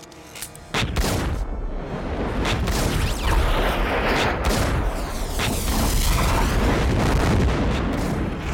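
Film sound design of pistol fire. A few sharp shots come first, then about a second in a loud, dense wash of slowed-down gunshots booming and bullets passing takes over, with film score underneath.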